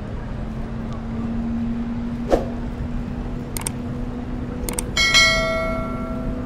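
A bell is struck once about five seconds in and rings for over a second, after a few sharp clicks, over the steady hum of a running engine.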